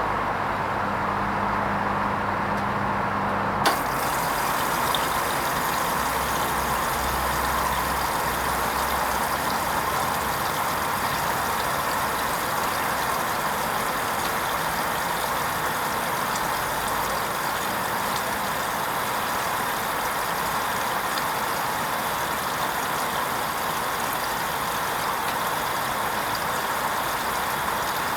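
Hoover Vision HVP16 washing machine on its wool rinse: a low steady hum stops with a click a few seconds in, and then water runs into the machine with a steady hiss as it fills for the rinse.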